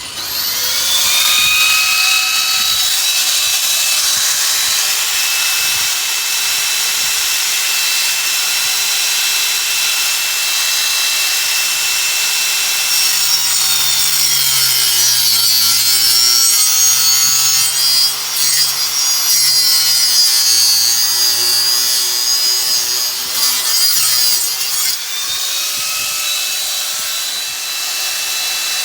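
Power saw cutting through PVC pool pipe, running continuously. Its motor whine climbs up to speed at the start, and near the end it sags briefly and winds back up.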